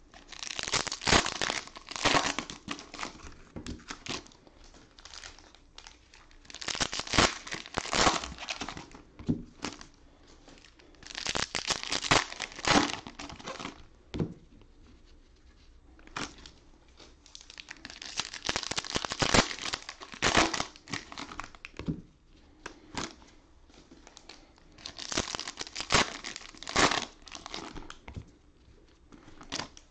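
Cellophane wrappers of trading-card cello packs being torn open and crinkled by hand, in about five bursts of crackling a few seconds apart, one for each pack.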